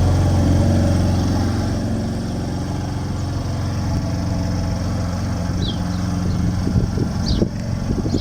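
Car engine running at a steady idle, with a few short knocks near the end and faint brief high chirps.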